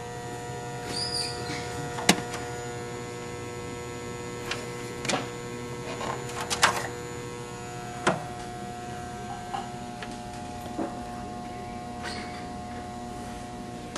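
Steady electrical hum from surge-test equipment, made of several steady tones. A handful of sharp clicks and knocks come through it, the loudest about two seconds in and others around five, six and a half and eight seconds.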